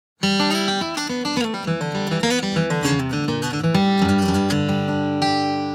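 Acoustic guitar playing a picked intro to a country song, quick changing notes that settle into a chord left ringing and slowly fading near the end.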